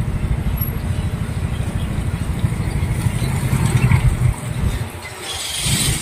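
Road noise from a moving vehicle, with heavy wind buffeting on the microphone as a constant low rumble; the rumble drops away briefly near the end as a brighter hiss rises.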